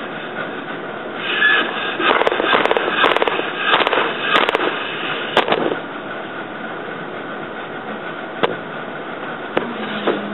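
16-harness floor loom in use: the harness frames and heddles rattle and clatter for a few seconds as the shed changes and the shuttle passes, followed by a couple of single sharp wooden knocks.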